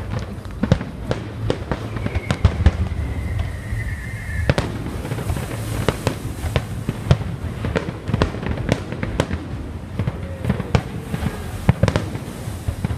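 Fireworks going off in a dense, irregular string of sharp bangs and crackles. About two seconds in, a whistling firework sounds a slowly falling whistle that ends in a loud bang, and a fainter falling whistle comes near the end.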